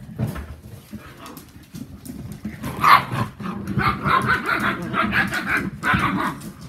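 Whippet puppies barking and yipping in rough play over a toy, getting louder and busier from about three seconds in.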